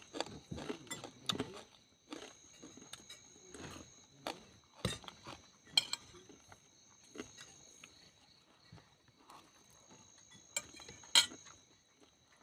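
Scattered sharp clinks and taps of utensils against dishes while eating a meal of papaya leaves and bitter melon, over a steady high-pitched whine.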